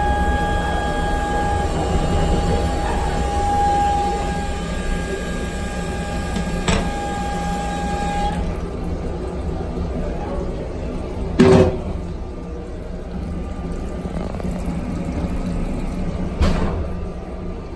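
Steady rumble of a MARC bilevel commuter coach running, heard inside its restroom. Over it, a steady whine from the restroom's toilet and sink plumbing cuts off suddenly about eight seconds in. A loud knock follows about eleven seconds in, and a smaller one comes near the end.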